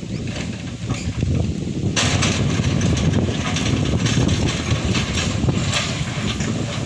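Tata Hitachi ZAXIS 120H excavator's turbocharged diesel engine running, with loud clattering of stone setting in suddenly about two seconds in.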